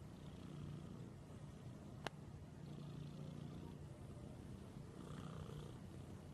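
Domestic cat purring: a steady low rumble that swells and eases about every two and a half seconds as it breathes, with a single sharp click about two seconds in.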